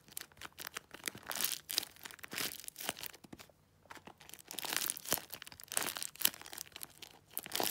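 A taped paper squishy stuffed with crumpled plastic-bag pieces, squeezed again and again in the hand: irregular crinkling and crackling of the taped paper and the plastic inside. There is a short pause about three and a half seconds in.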